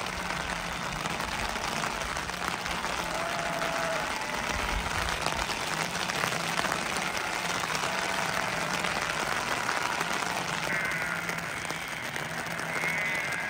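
Steady rain hissing, with a few faint short calls over it.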